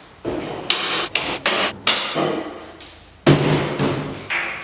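Folding card table being unfolded and set up: a quick run of sharp knocks and clanks as its metal legs swing out and lock, and as it is set down on a concrete floor. The loudest knock comes about three seconds in, and each one echoes around the garage.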